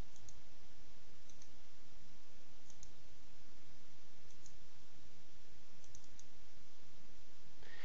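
Several faint computer mouse clicks, some in quick pairs like double-clicks, over a steady background hiss.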